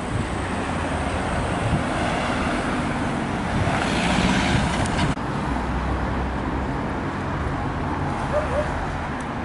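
Street traffic: cars driving past with engine rumble and tyre noise, swelling louder around four seconds in as a vehicle passes close. The sound changes abruptly about five seconds in.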